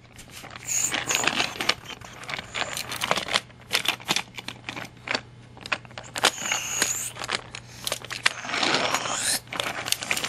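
Plastic and die-cast toy trains clattering on plastic toy track as they are pushed, lifted and set down by hand: a busy run of small clicks and knocks, with a couple of longer stretches of rolling and scraping.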